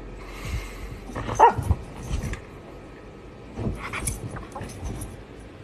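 A husky gives short yips, once about a second and a half in and again around four seconds, with rustling and soft thumps as it moves about in a plush dog bed.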